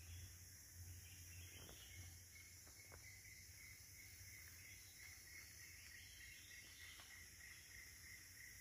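Near silence of tropical forest: a faint steady insect chorus, with a thin, even insect trill that sets in about two seconds in and carries on.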